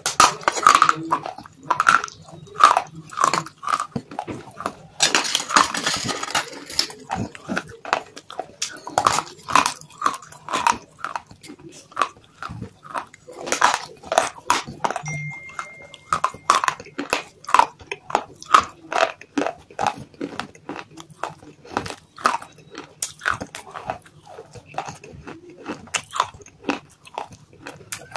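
Close-up biting and chewing of hard dry clay chunks: many crisp crunches at an uneven pace, with a denser grinding stretch about five seconds in.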